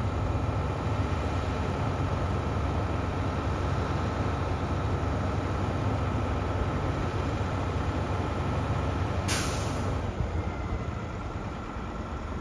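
Heavy vehicle running with a steady low rumble, and a short sharp hiss of released compressed air about nine seconds in.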